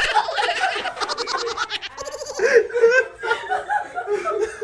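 Several people laughing hard in quick, pulsing bursts, with a woman shouting through the laughter.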